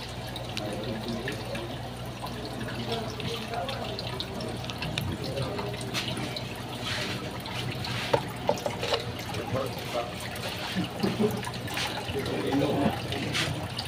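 Water bubbling and splashing in an aquarium as air from a sponge filter's lift tube breaks the surface, in irregular pops over a steady low hum.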